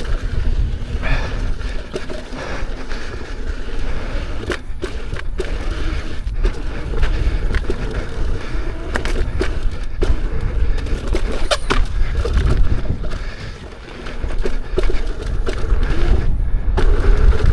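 Leaperkim Veteran Lynx electric unicycle riding fast over a rough dirt trail: steady tyre and rolling noise with wind buffeting the microphone, broken by many sharp knocks and clatters from rough ground. The noise eases briefly about two thirds through, then picks up again.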